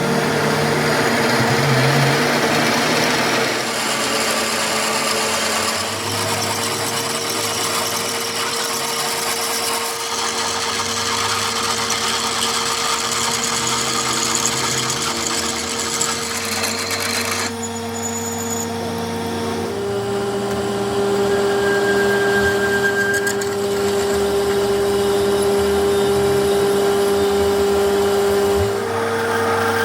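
A power tool or workshop machine running steadily, its pitch shifting a few times.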